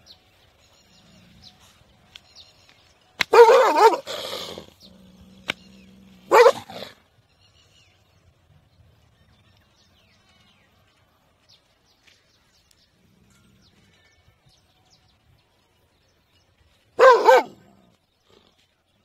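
Dog barking in short spaced-out bouts: two barks about three seconds in, one more a few seconds later, then a quick pair near the end.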